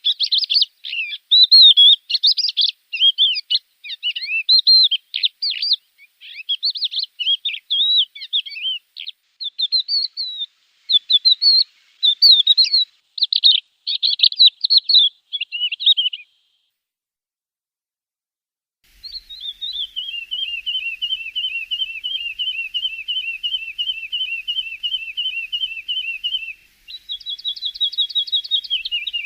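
Javan bush lark (branjangan) singing: a long run of fast, varied chirping phrases, a pause of about three seconds, then a rapid trill held on one pitch, switching to a higher trill near the end.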